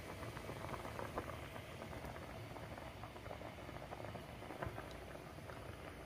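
A pot of ramen boiling on a portable gas burner: faint, steady bubbling with small pops.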